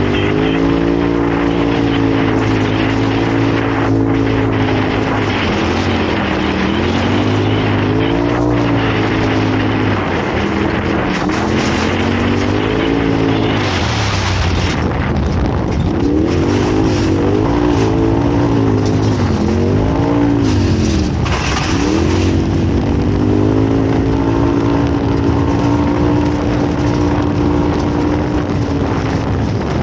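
Off-road race vehicle's engine running hard, its pitch dropping and climbing back several times as the revs fall and rise, over a steady rush of noise.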